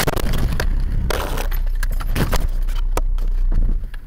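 A car collision heard from inside the car: a sudden crash, then a few seconds of glass and loose debris clinking and rattling over a low road and engine rumble. The noise drops away near the end.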